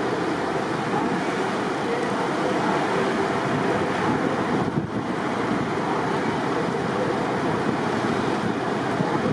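Steady rushing wind and road noise of a car being driven, with a brief dip about five seconds in.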